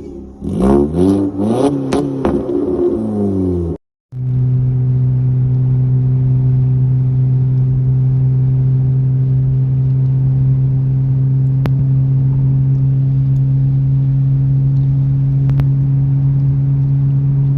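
Tuned car's engine and exhaust revving in several quick blips, then, after a short cut, a steady drone held at one even pitch.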